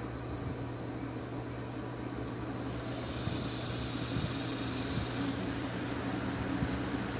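Samson 10-inch rubber-bladed table fan running after being switched on: a steady motor hum with a rush of air that grows about three seconds in as the fan comes up to speed.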